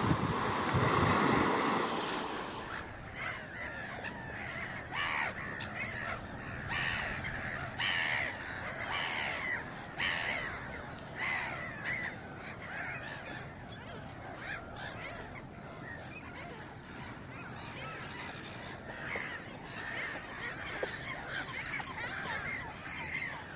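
Wind and surf on the microphone that cut off suddenly about three seconds in, followed by a run of harsh bird calls. The calls come about once a second at first, then thicken into a denser, softer chorus of calling.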